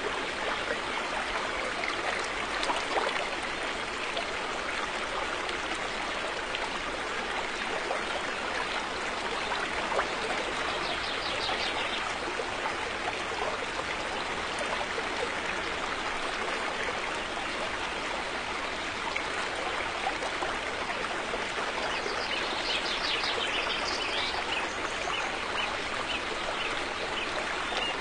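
River water flowing in a steady, even rush, with brief high chirps near the middle and again near the end.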